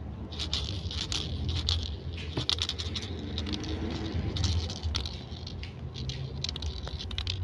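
Light patter and rustling of kittens scrambling and pawing at a toy on a shaggy rug, with scattered small clicks, over a steady low hum.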